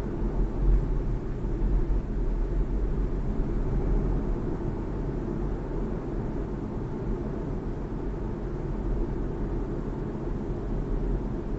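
BMW 3 Series (G20) on the move: a steady low rumble of road and tyre noise.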